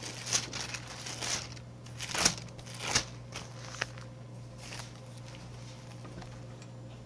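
Thin pages of a thick Bible being leafed through by hand: a run of paper rustles and crisp page flicks over the first four seconds, then it settles. A steady low hum runs underneath.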